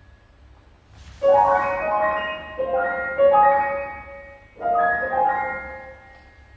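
Piano improvisation: loud chords struck in clusters about a second in, again around three seconds, and again near five seconds, each left to ring out and fade between the groups.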